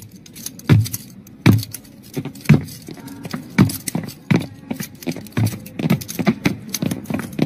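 A metal handcuff chain jangling and clanking in repeated sharp jerks, under a second apart at first and coming faster near the end.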